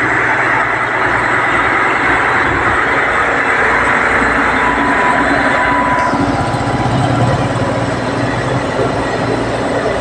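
Heavy diesel machinery running steadily, a loud mechanical rumble with rattling metal clatter from a large tracked bulldozer on a steel trailer deck.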